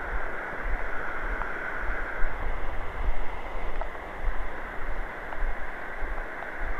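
Steady rushing of river water over rapids below a bridge, mixed with a low, uneven rumble of wind on the microphone.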